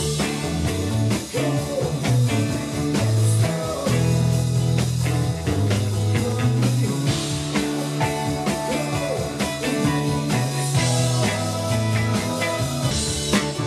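Live rock band playing: drums, bass guitar, two electric guitars and keyboards, with melodic lines gliding in pitch over a steady bass and drum groove.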